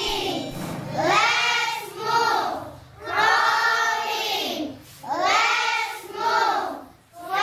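Children singing in short phrases of about a second each, separated by brief pauses.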